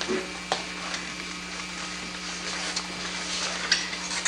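Classroom room noise on an old camcorder tape: a steady low hum and hiss with a few small knocks and rustles. Near the end a sharp click as the hum cuts off abruptly.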